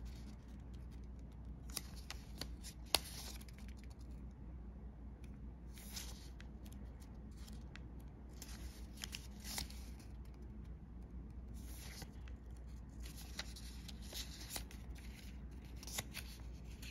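Hands handling a watch's packaging: short spells of rustling with light clicks and taps every second or two, the sharpest click about three seconds in.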